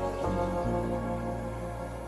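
Soft new-age background music: sustained keyboard-like chords that change a couple of times.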